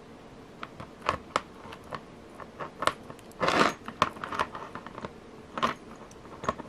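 Close-up handling sounds of a bead strand and beading thread as a knot is tied: scattered small clicks of beads knocking together and rustling of the thread between the fingers, with a longer scratchy rustle a little past the middle.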